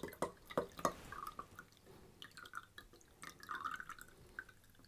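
Water trickling and dripping from a bottle of gel beads into a glass of water, an irregular run of small drips and splashes, as the water is drained off the beads.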